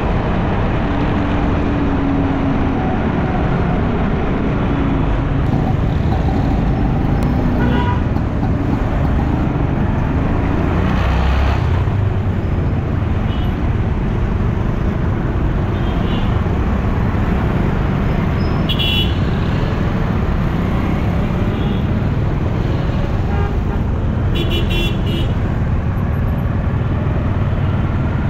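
Motorcycle riding through dense city traffic: steady engine, road and wind noise, with other vehicles' horns tooting briefly several times, in a quick cluster near the end.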